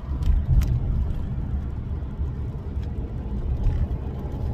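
Car cabin road noise while driving: a steady low rumble of engine and tyres. Two faint clicks come about half a second in.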